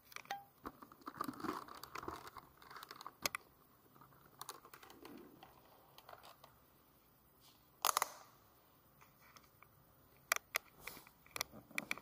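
Faint rustling, scraping and scattered sharp clicks of gear being handled right at the camera's microphone, with a louder knock about 8 seconds in.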